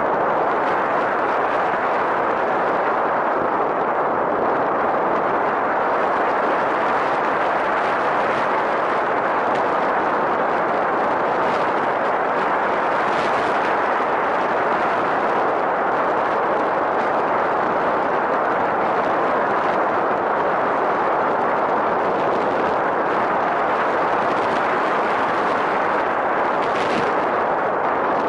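Steady rushing noise picked up by a camera riding on a radio-controlled model plane in flight: airflow buffeting the microphone, with two brief crackles, one about halfway and one near the end.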